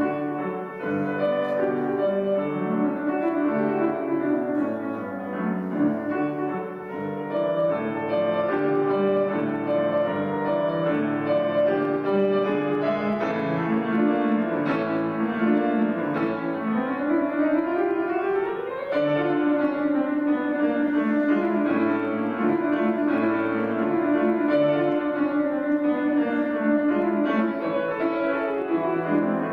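Yamaha grand piano played solo in a fast, busy passage of many short notes, with a quick rising run about two-thirds of the way through.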